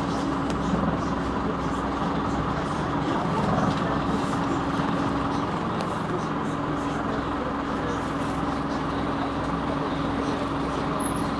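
Scania NewOmnicity city bus heard from inside the passenger cabin: the engine runs with a steady hum under a constant rumble of cabin noise.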